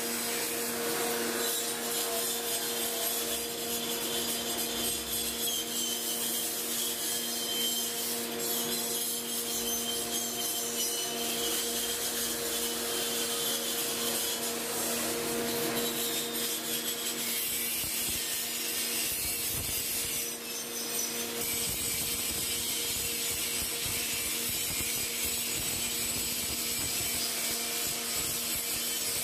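A grinding machine running steadily: a constant motor hum under the hiss and scrape of the grinding wheel working metal, with a faint wavering whine.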